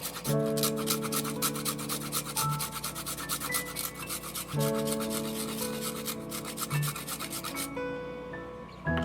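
Quick, regular scratching or rubbing strokes, about eight a second, over soft background music with held chords; the strokes stop near the end.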